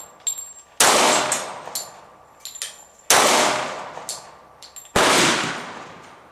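Three single gunshots about two seconds apart, each followed by a long echoing decay, with light metallic clinks between the shots.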